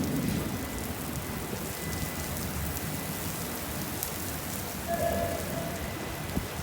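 Heavy rain pouring steadily onto the ground, a continuous hiss with scattered drop ticks. A brief faint tone sounds about five seconds in.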